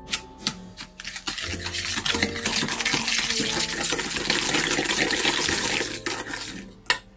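Electric hand mixer beaters creaming softened butter with granulated sugar in a stainless steel bowl. A few light taps of the beaters on the bowl, then about five seconds of steady, gritty whirring and scraping that stops about six seconds in, and one sharp tap near the end.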